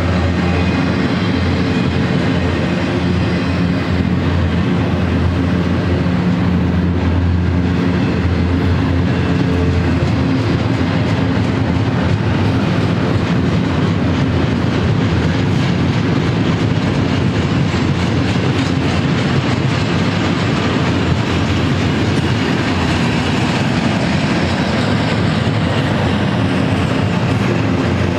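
Double-stack intermodal freight train's container-laden well cars rolling past: a steady, loud rumble of steel wheels on the rails with a clickety-clack over the rail joints.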